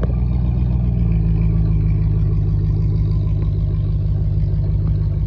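Chrysler 300's Hemi V8 held at high revs under heavy load, running steadily as the car strains in mud without much headway. It comes in suddenly at full volume and steps up slightly about a second in.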